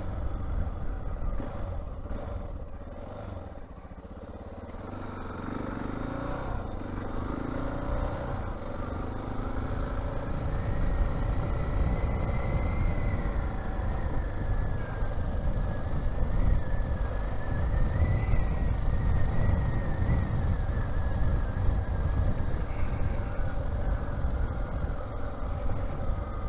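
Honda XR600R's single-cylinder four-stroke engine running under way, with low wind rumble at the helmet microphone. The engine eases off a few seconds in, then picks up again and holds a steady pace.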